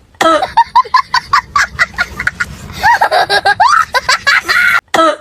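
High-pitched laughter in quick repeated cackles, several a second, breaking off briefly near the end.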